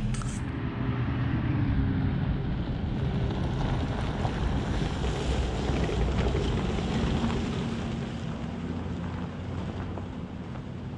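Wind rushing over the microphone. A pickup truck's engine is idling underneath at the start and fades within about a second.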